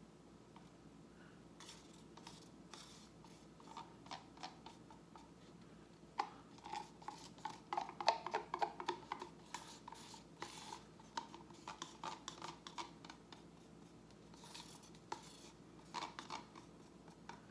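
Wooden stirring stick scraping and tapping inside plastic cups as paint is scraped out, with small plastic clicks. The scraping is faint and comes in short strokes, busiest through the middle and again near the end.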